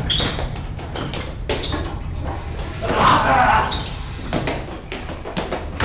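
A scuffle inside a toilet stall: repeated knocks and bangs against the stall walls and door, with shoes scuffing on the floor and a louder rush of noise about three seconds in.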